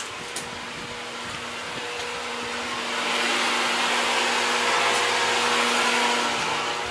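Ventilation fan running: an even airy rush over a low steady hum, growing louder about three seconds in and easing off near the end.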